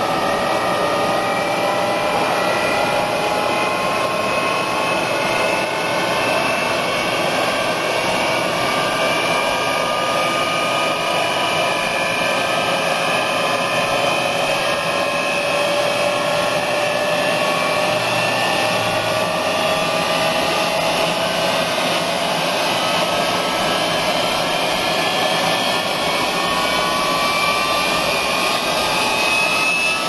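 Jet engine running hard: a steady, loud rush with turbine whines that climb slowly in pitch, one after another.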